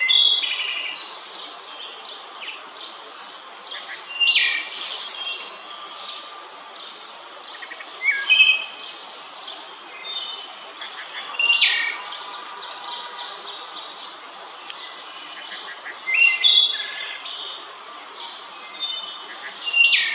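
Wood thrush singing: six separate flute-like song phrases, one about every four seconds, each a few clear notes followed by a higher, fluttering trill.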